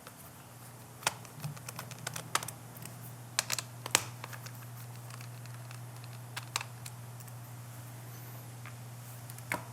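Irregular light clicks and ticks of a small precision screwdriver working out the three tiny screws that hold a laptop battery in place, thickest in the first few seconds. A faint steady low hum runs underneath.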